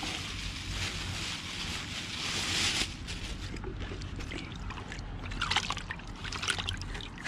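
Seawater sloshing in a plastic bucket as whole Australian salmon are swished about to rinse them, with small splashes and drips in the second half.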